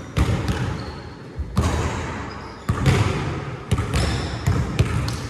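Basketball bouncing on a gym floor during a pickup game, with irregular thumps and a few short high sneaker squeaks on the court.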